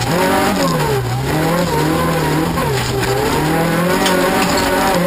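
Toyota Corolla rallycross car's engine heard from inside the cabin, revs dipping and rising several times as it is driven hard on a loose dirt track, over a steady hiss of tyres on dirt.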